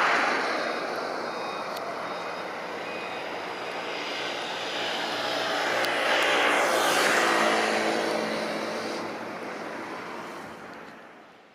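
Motor vehicle noise that swells and fades twice, the second pass carrying a faint engine hum, then dies away near the end.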